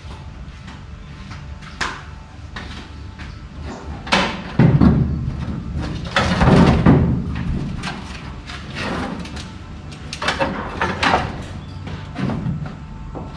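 Irregular thumps and knocks as a person moves about the bare cab floor of the truck and handles a corded power tool before starting it.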